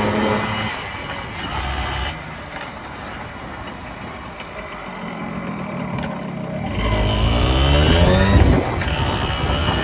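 Small single-cylinder motorcycle engine, the Yamaha YB-1's 50 cc four-stroke, while riding. It eases off about half a second in, runs quieter for a few seconds, then accelerates with a rising pitch from about seven seconds in and drops back near the end, as at a gear change.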